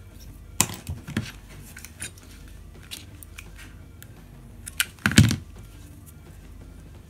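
Handling noise of a metal alligator hair clip and a hot glue gun: scattered light clicks and taps, with the loudest cluster of knocks a little past the middle.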